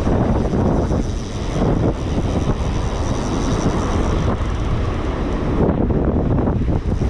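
Strong wind buffeting the microphone: a loud, steady rumbling rush with uneven gusts.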